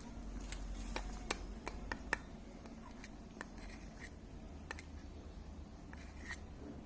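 A baby eating apple: a run of small sharp clicks and smacks, thickest in the first two seconds, then a few more scattered ones.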